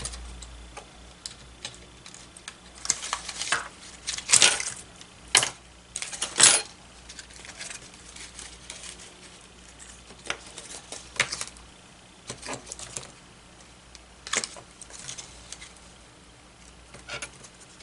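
Hands handling craft pieces on a cutting mat, picking up and setting down a wooden clothespin and a clear plastic holder: a scatter of light clicks and taps, thickest and loudest between about three and seven seconds in, with a few more later.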